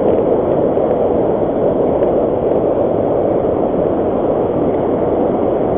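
Fast-flowing river water rushing, a steady loud rush.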